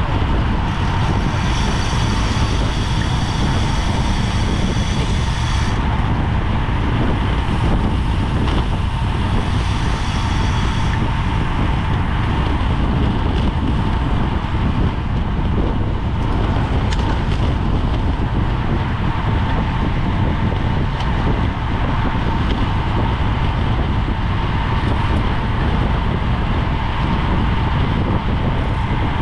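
Wind rushing over a bicycle-mounted GoPro's microphone at racing speed, a steady roar with a thin steady hum through it. Twice, about a second in and again about nine seconds in, a higher-pitched buzz joins for a few seconds.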